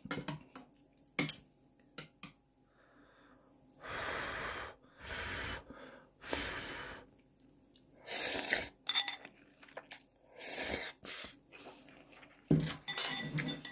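A person slurping noodles in several separate slurps, each under a second, with small clicks between them.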